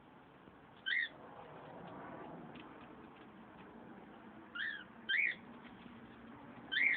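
Pet lovebird giving four short, sharp chirps, each a quick up-and-down note: one about a second in and three close together near the end.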